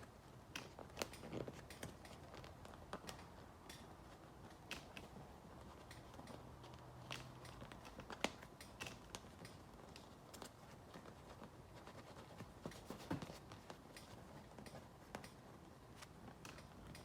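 Faint handling noises of hands working a patch into a torn motorcycle seat: scattered sharp clicks and light rustling.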